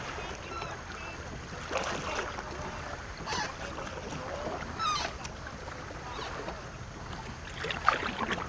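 Water splashing and lapping around a paddled war canoe, with a few short paddle splashes and faint voices of the crew.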